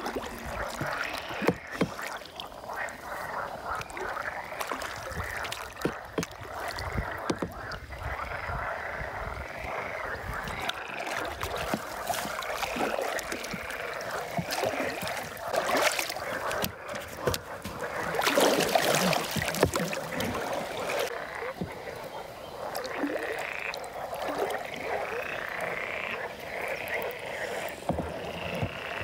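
A chorus of frogs croaking continuously from the reed beds, with a louder burst of noise about two-thirds of the way through.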